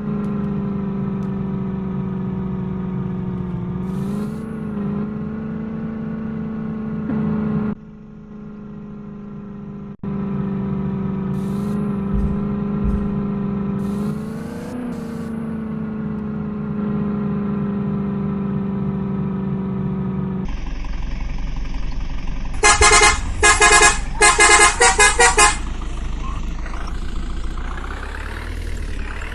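Diesel engine of a JCB 3DX backhoe loader running steadily, rising briefly a few times as it works. About two thirds of the way through, the sound drops to a lower rumble and a vehicle horn gives a rapid string of short toots.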